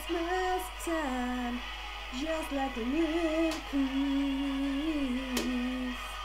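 A woman singing karaoke: long held notes that step up and down with no clear words, over a backing track.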